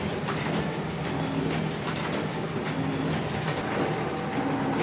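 Steady low mechanical rumble with a hum, and scattered light clicks and taps from hands handling the printer's plastic ink tank unit.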